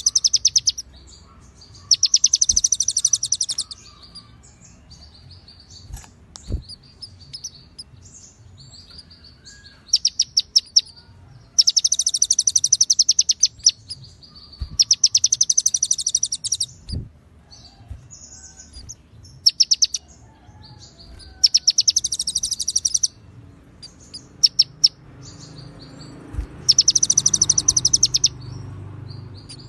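A konin (kolibri ninja sunbird) singing bursts of very fast, high, chattering trills, copied cililin and ciblek phrases. Each burst lasts one to two and a half seconds, with pauses of several seconds between them.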